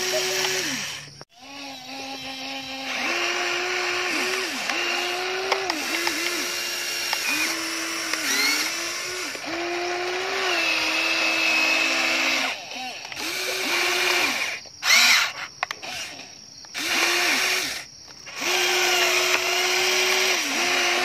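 Electric motors of a Huina radio-controlled toy excavator whining as the boom, arm and bucket move. The whine comes in short runs that start and stop, stepping between a higher and a lower pitch, with a few brief pauses.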